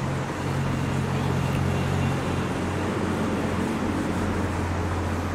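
Board duster rubbing continuously across a whiteboard as a diagram is wiped off, with a steady low hum underneath.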